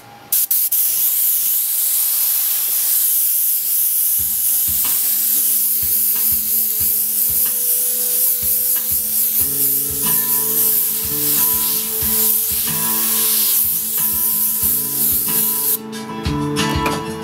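Airbrush spraying paint in a steady hiss that stops about a second before the end.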